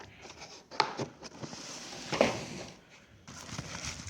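Cardboard boxes of fireworks being handled and set down, with a few knocks about a second in and a stretch of rustling and scraping that peaks a little past two seconds.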